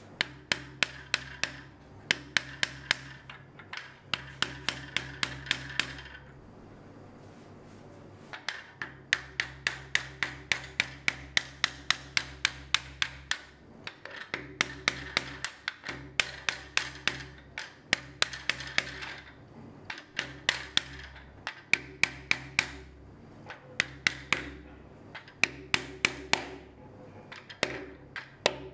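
Light hammer taps on a wooden block, driving the notched half-lap joints of a wooden kumiko grid down into place. The taps come in quick runs of several a second with short pauses between runs.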